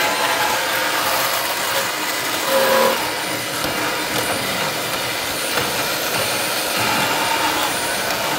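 Milwaukee M18 FUEL 2980-20 cordless angle grinder cutting into rusty metal with a cutoff wheel: a loud, steady grinding rush.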